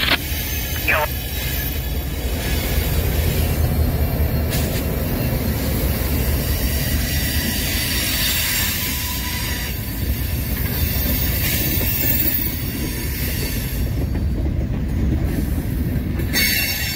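A freight train of covered hopper and tank cars rolling past close by, its wheels running over the rails in a steady, loud rumble.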